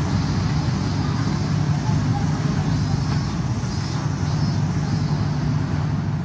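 Steady background noise of road traffic: a low rumble with a hiss above it, holding level throughout.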